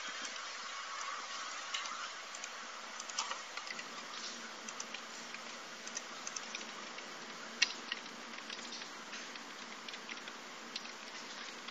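Computer keyboard keystrokes and mouse clicks, short irregular taps, over a steady hiss; one click about two-thirds of the way through is sharper than the rest.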